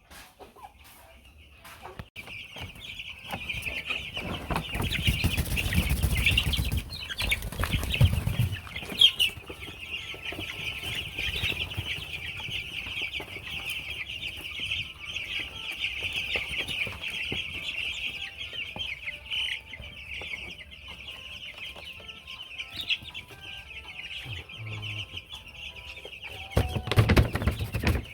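A flock of broiler chickens cheeping and clucking together as a steady, dense chorus that starts about two seconds in and stops near the end.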